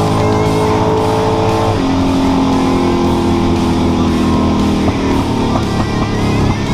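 Background rock music driven by electric guitar.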